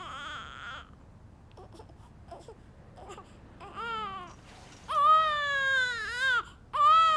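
Baby crying: a short cry at the start, a fainter one about four seconds in, then long, loud cries from about five seconds in, each wavering in pitch.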